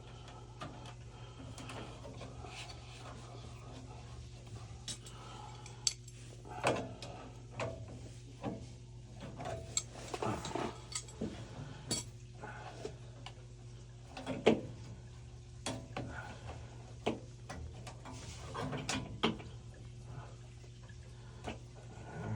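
Irregular clinks and clanks of small metal parts and hand tools being handled, a couple of dozen sharp knocks, over a steady low hum.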